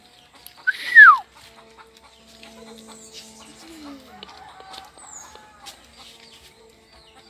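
A chicken gives one loud squawk about a second in, sliding up and then sharply down in pitch. Faint farmyard sounds follow.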